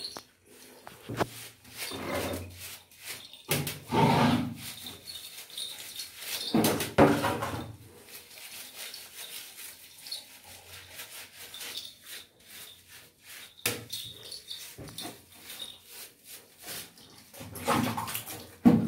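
A domestic cat giving several drawn-out meows while it is being soaped and washed, the loudest a third of the way in and another near the end. Between the calls come wet rubbing and scratching sounds of hands working lather into its fur.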